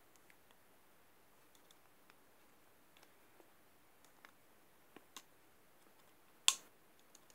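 Faint, sparse metal clicks and taps from a small eyelet pliers and screwdriver being handled as a part is worked back into the pliers' jaws, with one sharper, louder click near the end.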